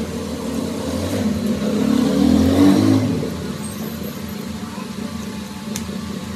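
A motor vehicle's engine that swells to a peak about two to three seconds in and then fades into a steady low hum. A single sharp click comes near the end.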